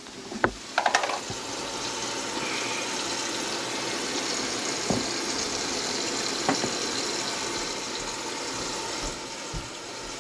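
Water running from the kitchen faucet and down the sink's PVC drain and P-trap, a steady rush heard from under the sink, with the drain now clearing after being rodded out. A few light clicks about a second in, and the flow eases slightly near the end.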